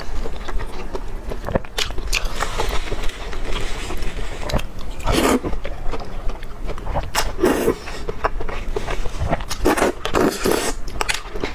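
Close-miked slurping of wide starch noodles in chili broth, several sucking slurps with wet chewing between them.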